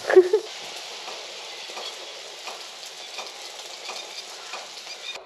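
Squid rings, scallops and tomatoes sizzling steadily in a frying pan on a portable gas stove. A brief vocal sound comes right at the start.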